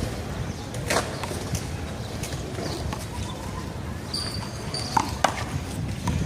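A few sharp slaps of a handball, struck by hand and rebounding off the wall, over a steady outdoor background rumble; the last two come quickly one after the other near the end. Two short high squeaks sound just before them.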